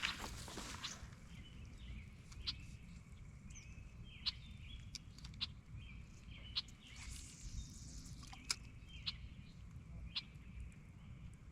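Faint bird calls over a steady low background rumble, with scattered sharp clicks about once a second.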